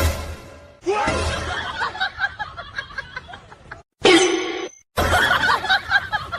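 Laughter and snickering in short clips, broken by two abrupt cuts to silence near the middle.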